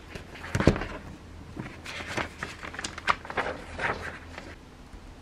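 Paper sheets handled on a desk: a thump about a second in as the stack is set down on the desktop, then several bursts of paper rustling as the sheets are spread out and smoothed flat.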